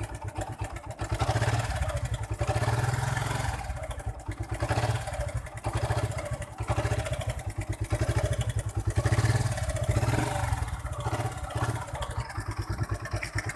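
Suzuki Gixxer motorcycle's single-cylinder engine running just after starting, the throttle opened and let back several times so it rises and falls. It runs on a cleaned but worn spark plug fitted to cure misfiring, and is judged to be working fine.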